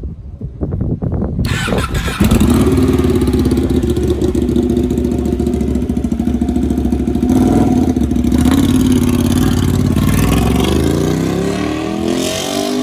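Ducati 899 Panigale's L-twin engine running through a custom exhaust with no muffler, very loud. It pulses low and uneven at first, settles into a steady note about two seconds in, and rises in pitch near the end as it revs up.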